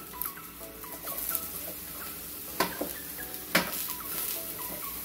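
Broccoli florets being stirred and tossed in hot oil in a stainless steel pan: a light sizzle with short high squeaks, and two sharp clanks of the utensil against the pan about two and a half and three and a half seconds in.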